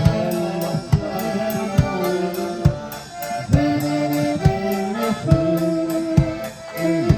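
Live instrumental music led by an accordion playing held melody notes over a drum kit, the bass drum keeping a steady beat a little faster than once a second with quicker cymbal ticks above.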